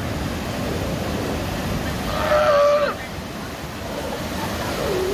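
Steady wash of ocean surf against a rocky shore. A little past two seconds in comes one short, loud call held at a steady pitch, which ends abruptly.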